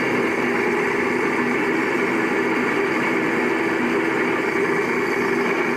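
Pillar drill (drill press) motor and belt drive running at a steady speed, an even mechanical hum with a whine.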